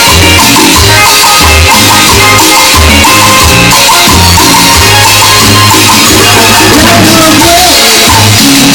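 Loud live Latin dance music of the salsa kind, with a steady bass and drum beat, shaken percussion and melodic lines over it, recorded at a level close to distortion.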